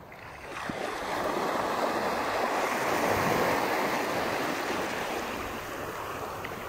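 Small surf washing in over the shallows, a wave's rush swelling about half a second in and slowly ebbing away.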